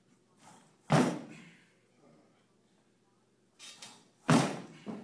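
Feet landing hard on a jump training platform after jumps: two loud thuds about three and a half seconds apart, each with a softer knock just before it.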